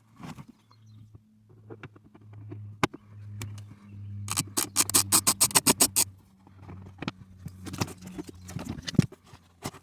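Ratchet wrench clicking in quick runs while a small screw holding the cabin air filter is loosened; the longest, loudest run comes about halfway through. A steady low hum sits underneath.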